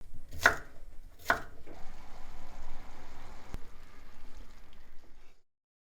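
Two sharp kitchen-knife strokes chopping on a cutting board, followed by a softer steady noise of food preparation. The sound cuts off suddenly a little past five seconds in.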